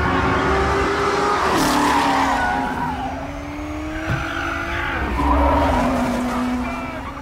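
Ford GT40 race car driven hard at speed: its engine note drops sharply about one and a half seconds in and again around five seconds, and the tyres squeal and skid.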